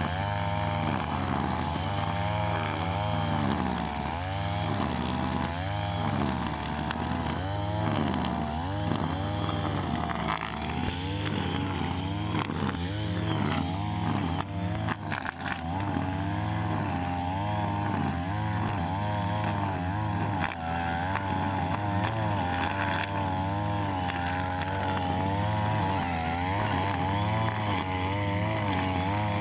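Two-stroke brush cutter engine running fast while cutting grass, its pitch wavering up and down as the load changes, with a brief dip about halfway through.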